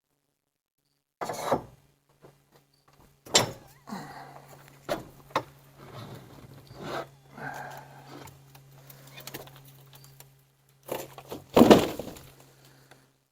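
Knocks, scraping and rustling as an E-Z-GO RXV golf cart's body is worked loose and lifted off the frame, with heavy thumps about a second and a half in, at about three and a half seconds, and a loud one near the end.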